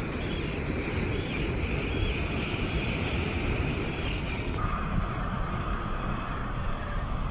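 Wind rumbling on the microphone over breaking surf, with seabirds calling again and again over the water in the first half. About halfway through the calls stop and a faint steady whine runs on under the wind.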